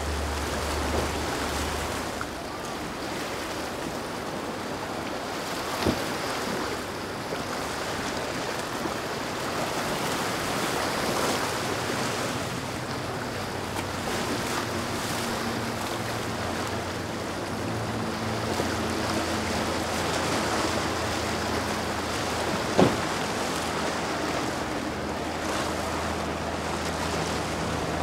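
Waves and choppy surf rushing and breaking in a rough inlet, with wind on the microphone. A boat engine drones low underneath from about halfway through. Two sharp knocks stand out, one about six seconds in and one late.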